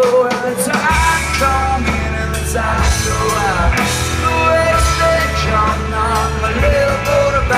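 Live rock band playing: drum kit and guitars, with the low bass notes coming in about a second in.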